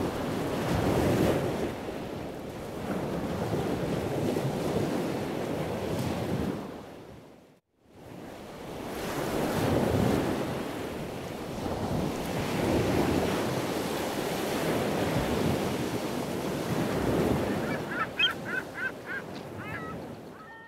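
Wind and sea rushing past a sailboat under way, with wind buffeting the microphone. The sound cuts out briefly about eight seconds in. Near the end comes a quick string of about six short, high calls.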